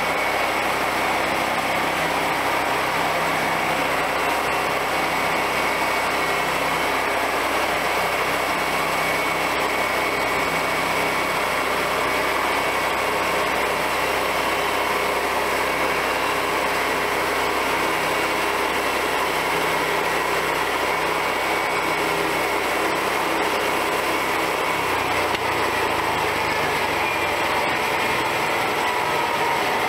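Small gasoline engine of a homemade bandsaw mill running steadily while the band blade saws through a log, with a constant high whine over the engine.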